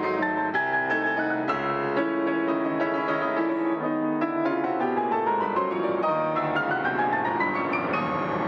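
Fazioli F308 concert grand piano played fast over a deep, ringing bass. From about halfway through, a rapid run of notes climbs steadily up the keyboard.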